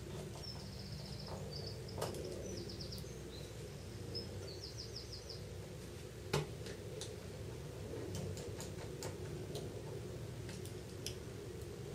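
Light clicks and taps of a small Phillips screwdriver and tiny screws being driven into a phone's frame, the sharpest click about six seconds in, over a steady low hum. A bird chirps in quick high trills through the first five seconds or so.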